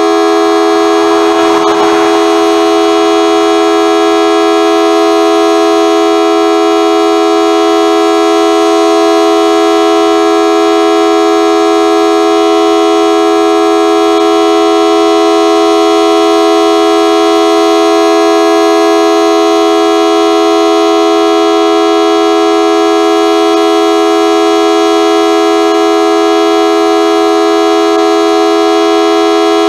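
Model 2T two-tone outdoor warning siren sounding a steady, low-pitched chord that holds its pitch without rising or falling. A brief rush of noise passes over it about a second in.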